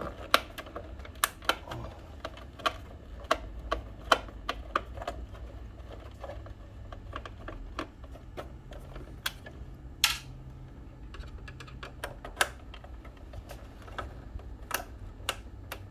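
Irregular sharp clicks and taps of a screwdriver and plastic housing parts being handled while a water ionizer is taken apart, over a faint low hum.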